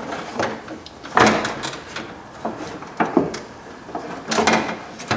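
A Volkswagen Beetle's metal inner door panel, which carries the window regulator, being worked loose from the door shell: a few separate clunks and rattles of metal against metal, the loudest about a second in.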